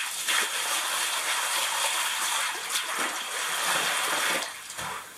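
Water pouring and splashing onto a Schluter Kerdi membrane shower floor as it is filled for a flood test. The pouring is steady, then tails off about four and a half seconds in.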